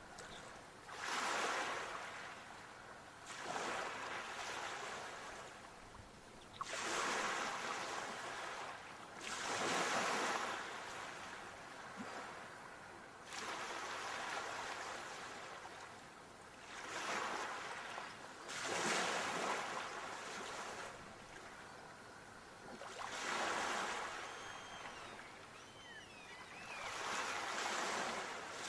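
Sea waves breaking and washing in, each surge of hiss swelling and falling away, about one every three seconds.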